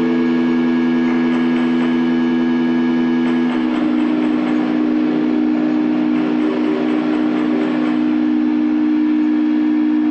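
Live electronic drone: several steady held tones stacked like a chord. About three and a half seconds in the chord thins out, the upper tones fading and two low tones carrying on.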